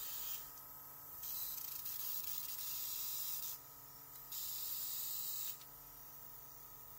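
Autolock cordless airbrush test-spraying blue paint: the spray hisses in three bursts as the trigger is pressed, the longest about two seconds, over the steady hum of its small compressor.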